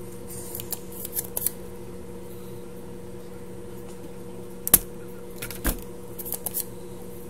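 Spring-loaded desoldering pump (solder sucker) clicking as it is handled on the capacitor solder joints. There is one sharp loud snap about the middle and a few lighter clicks around it, over a steady low hum.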